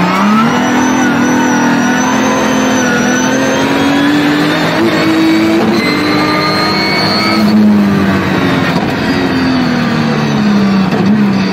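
Race car engine heard from inside the cockpit under hard driving. The revs climb in the first half-second and hold high, drop abruptly about seven and a half seconds in, then rise briefly and fall off near the end.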